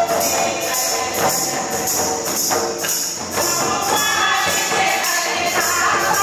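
Tribal folk dance music: voices singing over a steady beat of jingling metal percussion.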